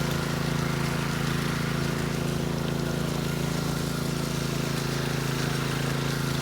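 Small engine running steadily at a constant speed, a steady even hum with no change in pitch.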